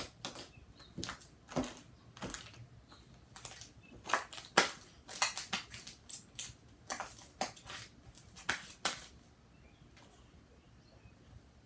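Slime being squished and worked by hand: a run of irregular sticky pops and crackling squelches, stopping about nine seconds in.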